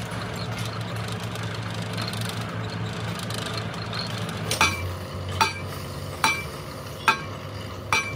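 Steady hum of an engine running, joined about halfway through by a hammer striking metal: five ringing blows at an even pace, a little under a second apart.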